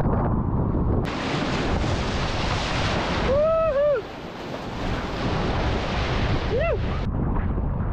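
Wind buffeting the microphone over choppy sea, then from about a second in a loud rushing hiss of breaking wave and spray around a sea kayak riding a wave. There is a short whooping shout around the middle and another brief one near the end.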